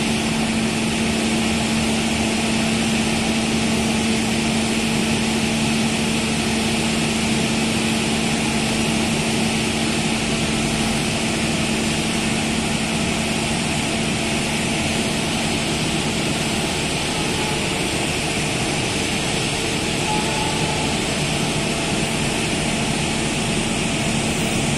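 Diesel engine of a stationary passenger train idling, a steady hum and drone.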